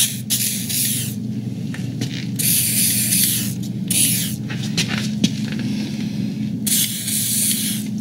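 WD-40 aerosol can spraying lubricant onto garage door hinges in four short bursts of hiss.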